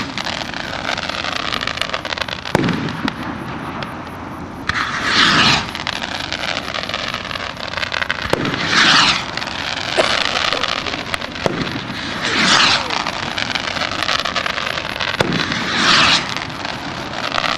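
Hand-made skyrockets launching in succession, each lift-off a rushing whoosh, one roughly every three to four seconds. Sharp bangs fall in between as rockets burst.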